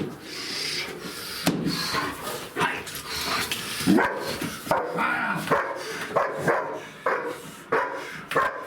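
German Shepherd barking repeatedly, about two barks a second.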